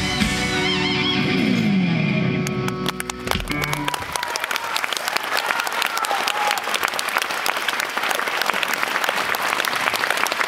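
Live band music with guitar plays to its final chord, ending about three seconds in. Concert audience applause rises over it and continues steadily after the music stops.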